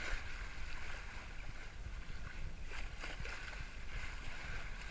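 Water rushing and splashing along the hull of a sailing yacht under way, a steady hiss with a few sharper splashes, over a low wind rumble on the microphone.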